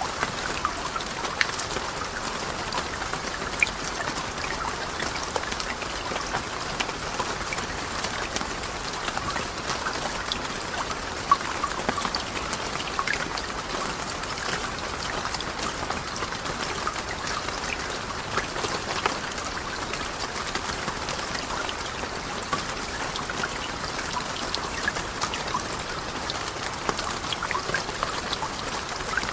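Steady rain: an even hiss of falling water dotted with many small drop ticks, a few of them louder.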